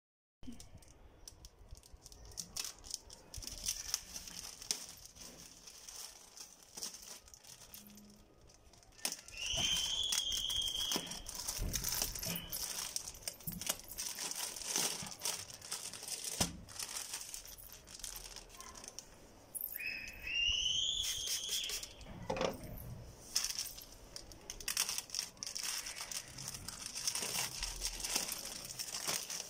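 Plastic courier mailer bag crinkling and crackling as it is handled and poked open with a pen. Twice, about a third and two-thirds of the way through, a long high squeal sounds over the crinkling.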